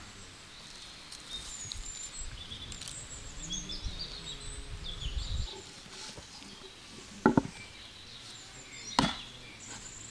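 Birds chirping in the background, with a low rumble through the first half. Two sharp knocks sound, one about seven seconds in and a louder one near the end.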